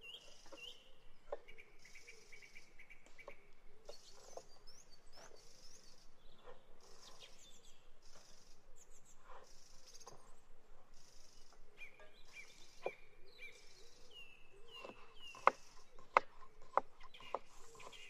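Small birds chirping with short falling calls over a high chirring that pulses about once a second, with light taps of a knife on a wooden cutting board. Three sharper knocks come close together near the end.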